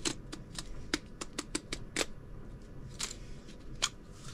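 Small red plastic case for tungsten carbide drills being worked open and pulled apart. It gives a dozen or so sharp, irregular plastic clicks, bunched in the first two seconds with a few more later.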